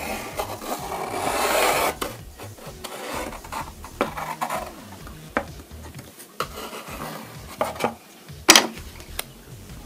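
Pencil scratching along the edge of a wooden letter J as it is traced onto a painted clipboard, loudest in the first two seconds and fainter after. A few light knocks come in between, the sharpest about eight and a half seconds in.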